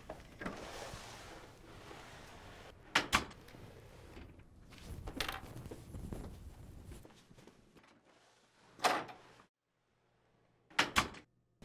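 Scattered sharp knocks and thuds in a small room, such as a door and things handled on an office table: a close pair about three seconds in, single ones a little after five and near nine seconds, and another close pair near the end.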